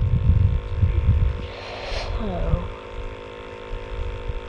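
Wind buffeting the microphone in irregular low rumbles that die down about a second and a half in, over a steady faint electrical hum.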